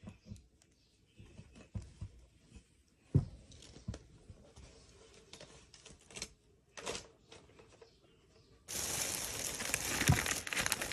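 A few light knocks and taps from things being handled on a table, the loudest about three seconds in. Then, about nine seconds in, a thin plastic shopping bag starts crinkling and rustling steadily as it is handled.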